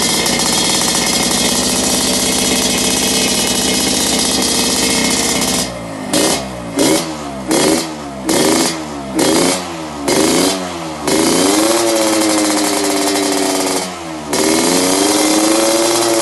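Motorcycle engine revving through an aftermarket exhaust with a straight-through silencer. It holds steady high revs for about five seconds, then gives a quick run of short throttle blips, then longer revs rising and held again, with a brief drop near the end.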